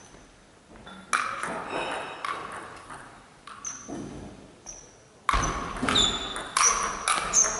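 Table tennis ball clicking. A few scattered clicks come while the server gets ready, then about five seconds in a rally starts, with quick, sharp clicks as the ball strikes bats and table in turn.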